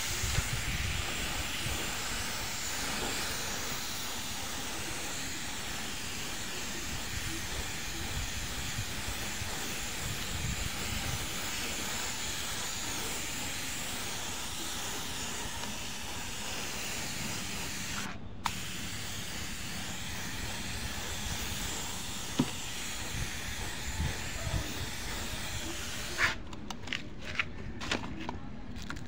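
Paint spray gun hissing steadily as it lays paint over a scratch repair on a car panel, cut off once for a moment about two-thirds through. Near the end the spray comes in short spurts.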